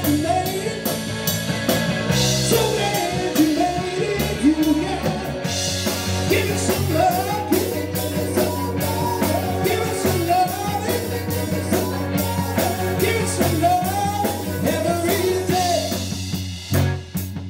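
Rock band playing, with electric guitar, bass and drums under a wavering melodic lead line. Near the end the song closes on a hard final hit.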